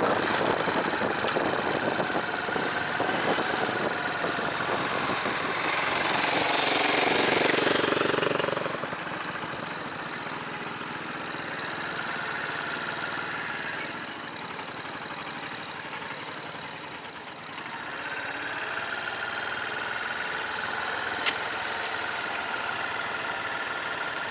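Honda dirt bike engine running, louder for a couple of seconds about six to eight seconds in, then running steadier and quieter.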